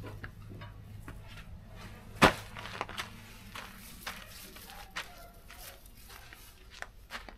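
Irregular knocks and clatters, with one loud sharp thump a little over two seconds in, over a faint low hum that fades away.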